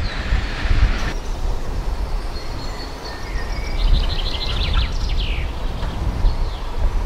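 Small birds chirping over a steady low rumble, with the background hiss changing abruptly about a second in.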